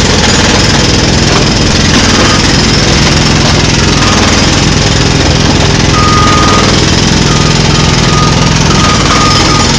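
Heavy construction machinery running loudly and steadily, an engine's low drone under a broad mechanical clatter, with a thin high tone coming and going in the second half.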